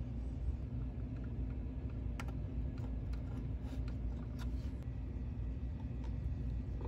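A few light clicks and taps from handling a circuit board and capacitor leads during soldering, mostly in the middle, over a steady low hum.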